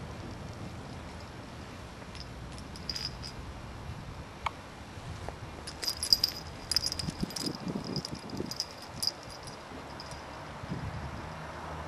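Light jingling and clicking in irregular bursts, busiest about six to nine seconds in, like a small bell being knocked about.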